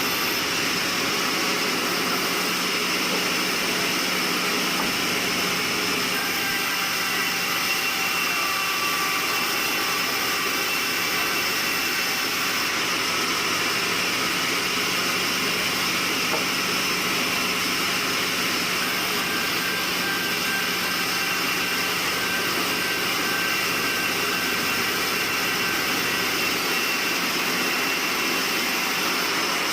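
Sawmill saw machinery running steadily: a loud, unchanging whir with a constant low hum.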